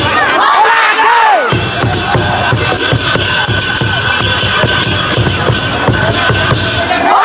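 Festival drumming with a steady beat and crowd noise. For the first second and a half the deep drum sound drops out under a wavering high sound, then the beat comes back; the same break recurs near the end.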